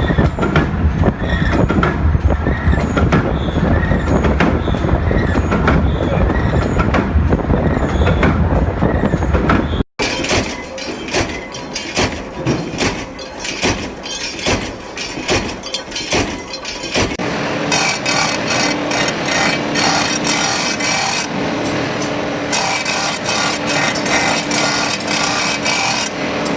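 Industrial production machinery running in three separate clips: a heavy low rumble, then rapid clattering from about ten seconds in, then a steadier mechanical hum from about seventeen seconds in.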